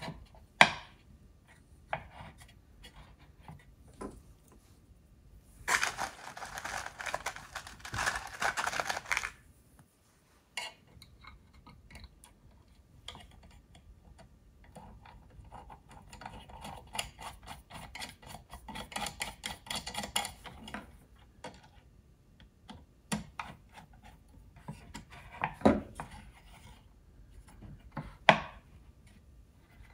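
Hands working small brass hardware at a wooden workbench: scattered clicks and light metallic taps as brass pivot arms and brackets are handled and fitted to a wooden frame, with two longer stretches of rustling and scraping.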